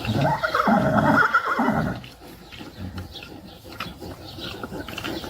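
A dog's drawn-out, wavering howl-like vocalising, lasting about two seconds, followed by quieter scattered sounds.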